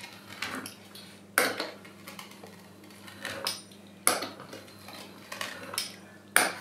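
Fluted metal pastry wheel cutting rolled-out dough into strips on a wooden board: soft rolling scrapes along each cut, and a sharp click every two to three seconds as the wheel comes down on the board.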